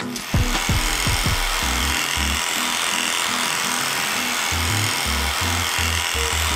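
Electric dog clipper running steadily as it shaves through heavily matted fur, with background music underneath.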